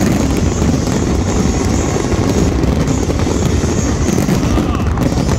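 Dense New Year's Eve fireworks barrage, many shell bursts running together into a steady low rumble, heard from among the crowd.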